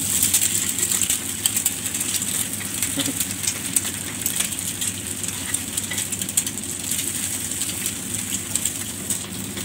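Eggs sizzling on a steel flat-top griddle while a metal spatula chops and scrapes them against the plate, making many sharp metallic clicks and taps over a steady hiss.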